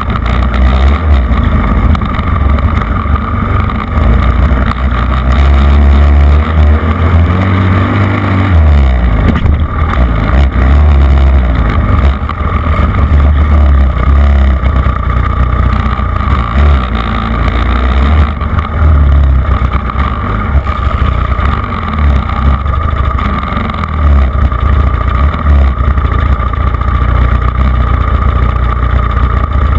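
Off-road vehicle engine running hard over a sandy track, its pitch rising and falling as the throttle is worked, with heavy wind rumble on the microphone.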